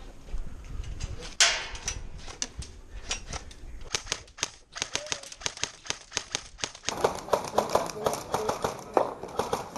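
Airsoft guns firing: sharp clicks and pops in irregular bursts, with one loud crack about a second and a half in, then a quicker, steadier run of shots after about seven seconds.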